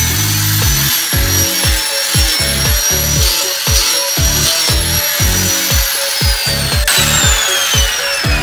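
Background music with a steady beat, over a hand-held angle grinder running with a high steady whine. About seven seconds in the grinder is switched off, and its whine falls in pitch as the disc spins down.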